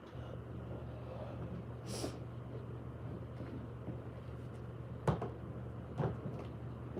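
A low steady hum with a short hiss about two seconds in, then two knocks about a second apart, like something being handled or a cupboard or door bumping.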